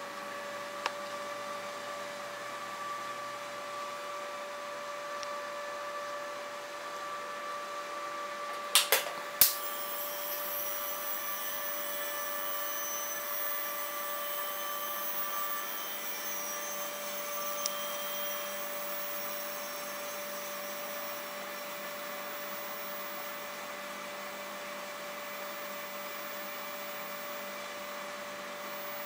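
Small cooling fan whirring steadily at a constant pitch, having just spun up to speed. About nine seconds in come two sharp snaps close together, typical of the high-voltage igniter striking the xenon lamp. After them a faint high-pitched whine from the running ballast joins the fan.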